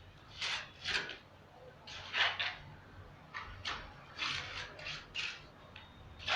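Wet cement being scraped and packed into a hole in a wall for a socket box: a series of short, irregular scrapes.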